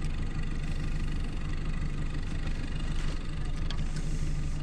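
An engine idling steadily, an even low hum.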